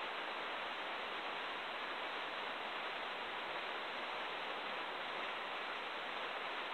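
Steady rain falling, an even hiss with no separate knocks or clicks.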